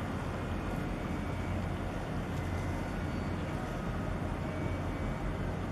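Steady low drone of ship engines, from the container ship and the harbour tug escorting it, under an even hiss.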